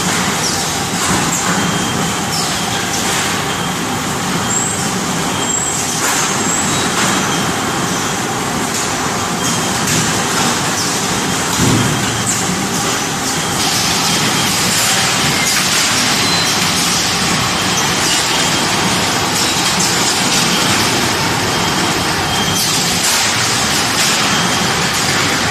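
Automatic salt-pouch baler running: a steady dense mechanical din with many short clicks and knocks throughout.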